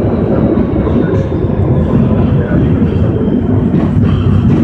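Madrid Metro Line 4 train running at speed through a tunnel, heard from inside the carriage. Its wheels on the rails make a loud, steady, deep running noise.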